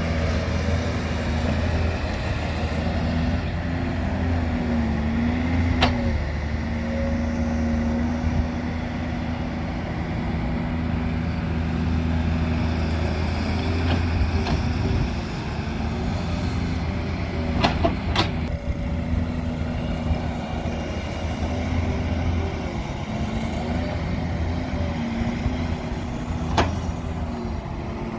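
Heavy diesel engine of an excavator loading mud, running steadily, its pitch wavering slightly as the hydraulics take load. Sharp knocks cut through: one about six seconds in, two close together past the middle, and one near the end.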